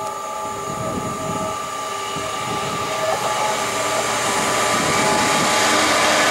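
Class 66 diesel-electric locomotive, its EMD two-stroke V12 engine running, approaching with a freight train of loaded ballast wagons. It grows steadily louder as it nears.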